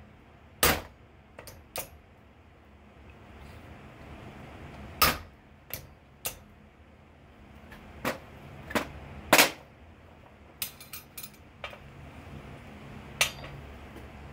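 Sharp, irregularly spaced metal strikes: a hammer on a hand punch and the anvil, driving a hole through a hot iron bar, with lighter clinks of tools and the workpiece on the anvil in between. A steady low hum from the coal forge's air blower runs underneath.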